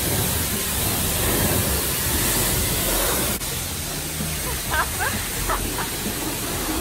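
A self-serve car wash's high-pressure wand spraying water onto a car, a steady hiss of the jet and spatter. The hiss drops a little about halfway through.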